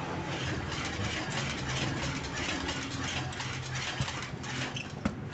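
Steady low mechanical hum like an idling engine, with a couple of faint clicks near the end.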